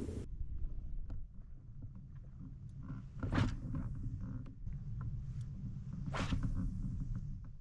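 Kayak moving on the water: a steady low rumble with two brief swishes about three seconds apart and scattered light clicks.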